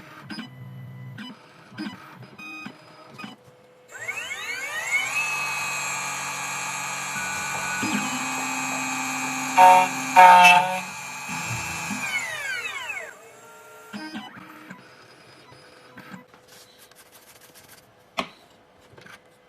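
2M2 Tank CNC key cutting machine cutting one depth position on a HON66 Honda key. Its cutter spindle spins up with a rising whine about four seconds in and runs steadily. Two louder grinding bursts near the middle are the cutter biting into the key. The spindle then winds down with a falling whine.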